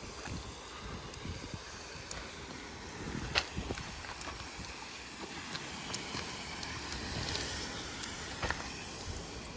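Steady hiss of water spraying from a pressure-washing wand onto a surface, with a few faint clicks.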